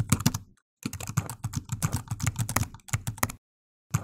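Keyboard typing sound effect: rapid clicking keystrokes timed to text appearing letter by letter, with two short breaks in the typing.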